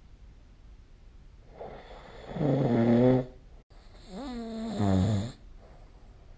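A sleeping person snoring: two loud snores, the first starting about one and a half seconds in and the second about four seconds in, its pitch wavering downward.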